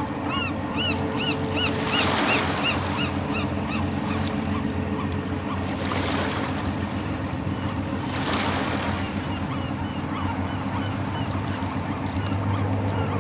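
Waves washing in, surging every few seconds over a steady low hum, with a quick run of repeated bird calls near the start that comes back more faintly later.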